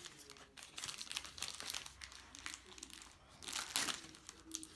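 Plastic toy packaging crinkling and rustling as it is handled and unwrapped, in irregular crackles with a louder burst near the end.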